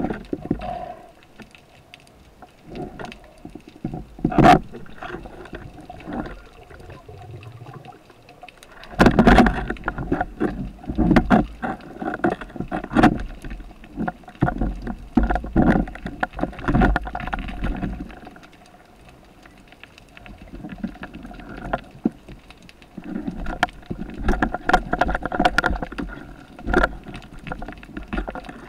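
Underwater handling noise from a free diver at work among rocks: irregular muffled knocks, clicks and rushes of water, busiest in two long stretches, over a faint steady whine.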